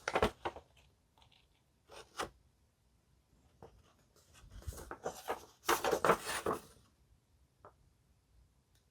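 Paper instruction manual being handled and unfolded: short spells of rustling and crinkling with a few light clicks, the loudest rustling from about four and a half to six and a half seconds in.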